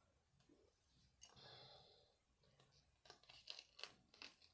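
Faint handling of a phone's plastic parts during disassembly: a soft scrape lasting about a second, then a run of small plastic ticks and clicks.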